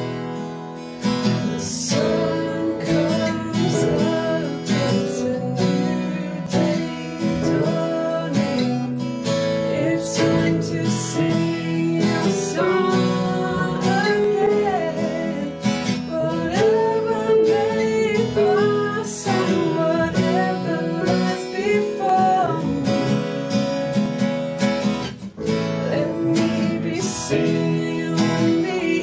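Strummed acoustic guitar and piano playing a slow worship song, with a woman singing the melody over them.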